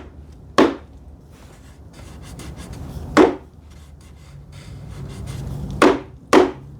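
Sharp knocks on wood: one under a second in, one about three seconds in, and two close together near the end, with faint handling noise between them. They come while the glued-up cabinet case is being worked flush.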